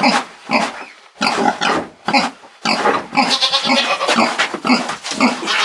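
Pigs in a farrowing pen calling in short, repeated grunts and squeals, several a second, with a denser run of calls in the middle.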